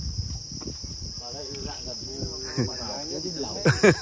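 A steady, high chorus of crickets at night. People's voices talk faintly from about a second in, with a louder voice near the end.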